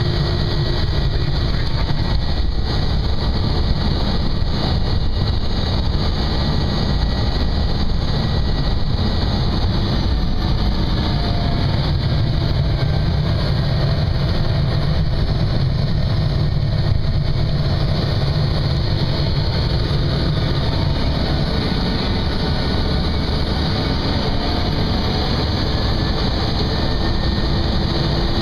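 Single-engine propeller airplane's engine and spinning propeller, heard from inside the cockpit: a loud, steady drone with a faint whine over it while the plane taxis and lines up on the runway.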